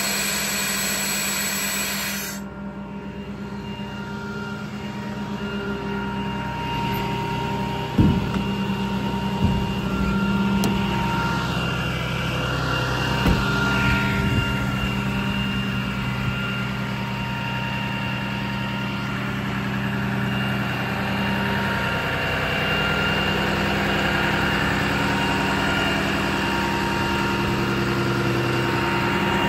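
Ram 5500's 6.7 Cummins turbo-diesel idling steadily, with a low hum and a few higher steady tones. A hiss cuts off about two seconds in, and a few sharp knocks come about eight, nine and thirteen seconds in.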